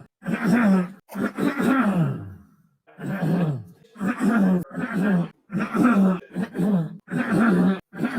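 A man clearing his throat and coughing over and over: about eight short, throaty voiced grunts, each falling in pitch, one after another with brief gaps.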